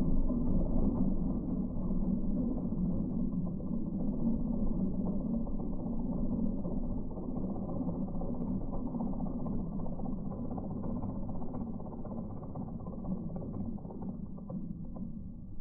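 Geko stump grinder attachment on a Bobcat E10 mini excavator running in slow-motion playback: a steady low mechanical drone that eases off slightly toward the end.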